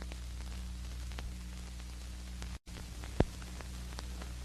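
Old film soundtrack noise: a steady hiss and low hum with scattered faint crackles. A brief dropout comes a little past halfway, followed by a single sharp pop.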